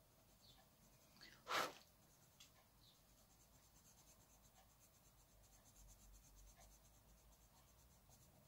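Faint scratching of a Derwent Inktense watercolour pencil shading on paper in quick, even strokes. A short breath-like sound comes about a second and a half in.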